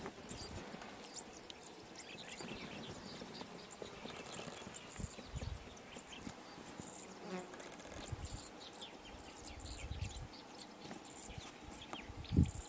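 Insects calling outdoors in short high-pitched bursts that repeat every second or two, with faint chirps among them. Low rumbles come now and then, the loudest a thump near the end.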